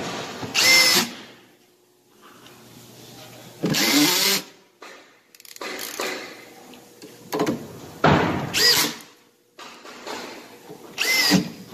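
Cordless drill with a number two square-drive bit driving inch-and-an-eighth screws into the wooden panels of a wardrobe unit. It runs in about six short bursts, one per screw, some whining upward in pitch as the screw goes home.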